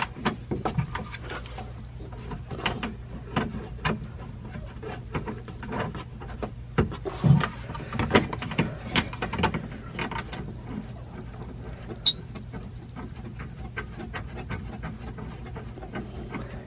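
Irregular small clicks, taps and rattles of hands working the plastic wiring connector and seat-belt buckle of a side-by-side's seat-belt switch, trying to unplug it, over a low steady hum.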